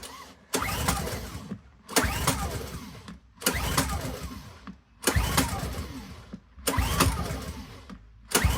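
Honda 10i petrol inverter generator being pull-started: six hard pulls on the recoil starter about one and a half seconds apart, each giving a brief whirring crank that dies away. The engine turns over but does not catch.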